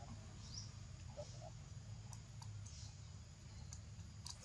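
Faint outdoor ambience: a steady low rumble with a few scattered sharp clicks in the second half and one short, high, rising chirp about half a second in.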